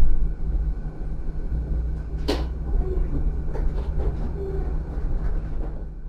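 Rotax E6 / EU8N tram heard from inside its passenger saloon: a steady low rumble with a steady low hum, and one sharp clack about two seconds in, with a few fainter knocks after it.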